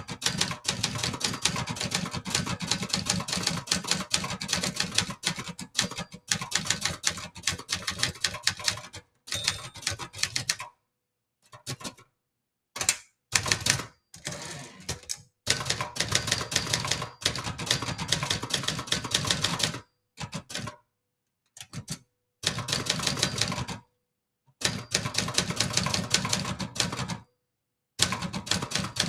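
Brother Charger 11 portable manual typewriter being typed on fast: dense runs of clattering keystrokes and typebar strikes, broken by several short silences. About halfway through the typing thins to a few separate strokes while the carriage is returned.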